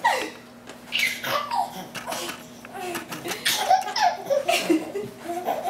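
Baby laughing in a string of short, bursting belly laughs and giggles, coming thickest toward the end.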